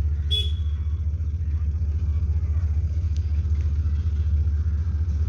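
Diesel locomotive engine giving a low, steady rumble with a regular throb as it hauls a loaded stone train toward the listener. A brief high chirp is heard near the start.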